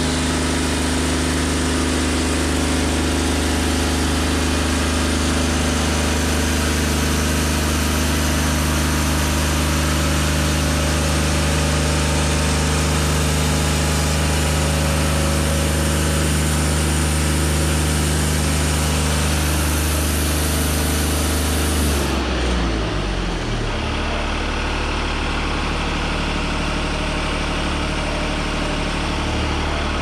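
Wood-Mizer LT40 Wide hydraulic band sawmill running at full speed as its band blade saws along a white pine log, a steady engine note with a dense hiss over it. About 22 seconds in the engine winds down, its pitch falling to a lower, steady running speed as the cut ends.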